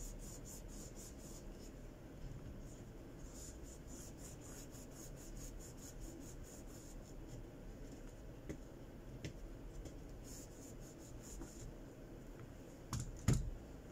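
Cloth rubbing back and forth over a smartphone's bare middle frame in bursts of quick scratchy strokes, wiping away glass shards and old adhesive before a new LCD is fitted. Two louder knocks near the end as the frame is handled on the mat.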